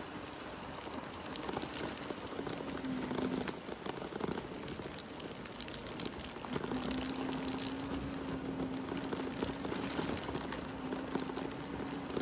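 Electric Segway scooter riding along a wet park path: a steady motor whine that drops out for a few seconds in the middle and then returns, over a gritty hiss of tyres and wind.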